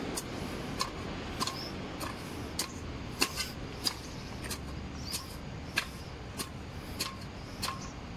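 Metal spade blade chopping and scraping into sandy soil and vegetable and fruit peels: a string of sharp ticks and scrapes, roughly one every half second.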